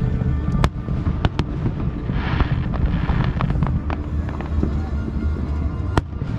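Fireworks display: several sharp bangs of bursting shells, with a burst of crackling about two seconds in, over a continuous low rumble of booms.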